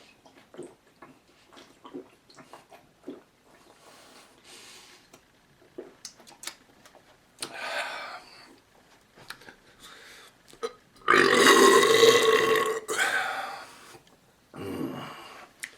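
A man belching after drinking malt liquor: a short burp about seven and a half seconds in, then a long, loud belch lasting about three seconds from around eleven seconds, and a shorter one near the end.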